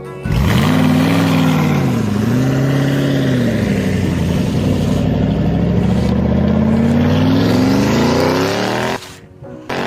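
Engine revving, its pitch climbing and dropping back twice before a long slow climb, then cutting off suddenly about nine seconds in.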